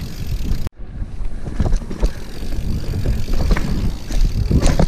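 Mountain bike descending a dirt forest trail, heard from a handlebar-mounted camera: wind buffeting the microphone and tyres rumbling over the ground, with knocks and rattles of the bike over bumps. The sound cuts out briefly less than a second in, then resumes.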